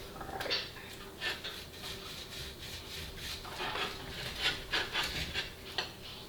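Irregular light rustling, scraping and clicking of things being handled, with a faint steady hum underneath.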